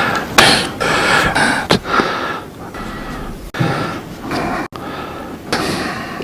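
Heavy breathing into a commentator's microphone: several loud breaths in and out, unevenly spaced, with a quieter stretch in the middle.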